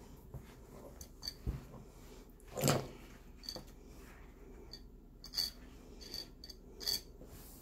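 Scattered light clicks, taps and small metallic clinks from handling a sewing awl and string while hand-stitching a backpack strap. A slightly louder rustle comes about a third of the way in.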